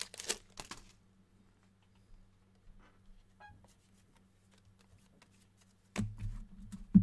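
Trading cards being handled and flipped through: faint flicks and rustles over a steady low hum. About six seconds in there is a louder bump and rustle, then a sharp knock near the end.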